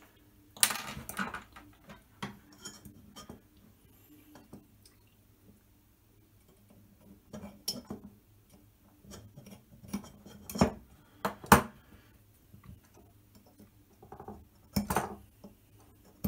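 A digital caliper and a small knife handled against an aluminium extrusion while a measurement is marked: scattered sharp metallic clinks and taps a few seconds apart, with quiet handling noise between.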